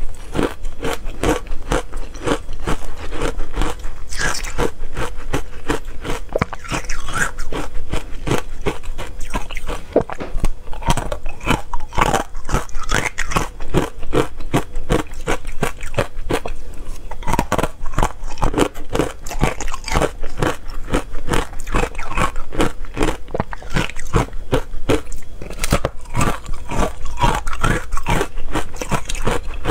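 Frozen matcha ice being bitten and chewed: a dense, unbroken run of crisp crunches and crackles.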